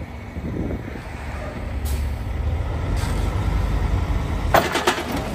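Loaded log truck's diesel engine idling with a steady low rumble, with a few sharp crackling bursts near the end.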